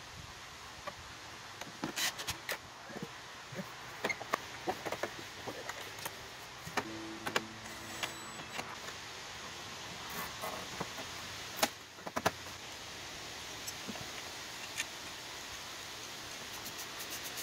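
Cordless drill running briefly, about seven seconds in, to drive screws into a scooter's body panel, amid scattered clicks and clinks of screws and hand tools being handled.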